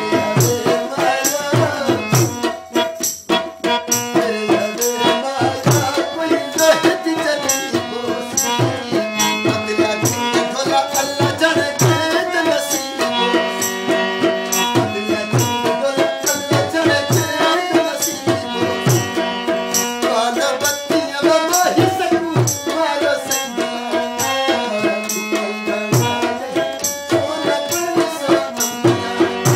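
Qawwali: a man singing with a regular percussion beat behind him.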